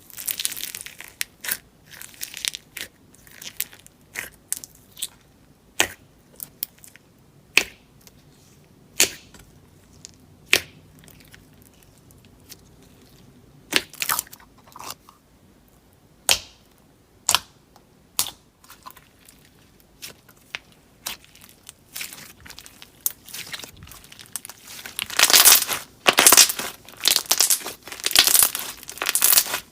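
Slime being squeezed and poked by hand, giving sharp pops and clicks. They come one at a time at first, then run into a dense, continuous crackle near the end.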